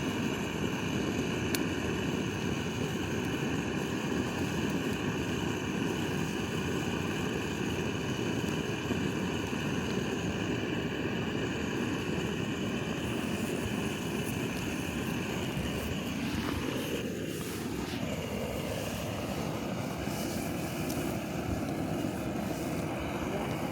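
A small motor or fan running with a steady drone and a constant whine; the pitch briefly dips and recovers about two-thirds of the way through.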